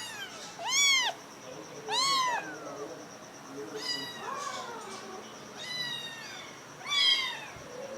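Puspin kittens meowing: short, high-pitched meows that rise and fall, about five in all. Three are louder, and fainter ones overlap in between.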